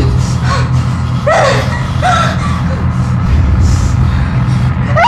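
Short, strained gasps and whimpers from a person in a struggle, over a steady low drone.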